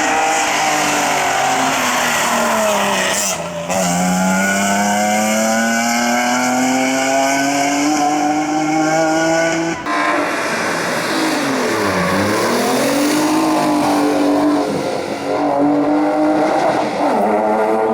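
Hillclimb race car engines under hard use: the engine note drops as one car slows, then climbs steadily in one long pull as it accelerates. About ten seconds in the sound cuts abruptly to another engine that drops sharply and climbs again.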